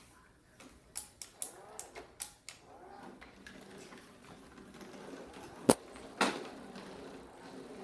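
A row of sharp plastic clicks, then from about three seconds in the brush motor of a cordless Shark motorized carpet sweeper runs with a steady hum, with two loud clicks partway through.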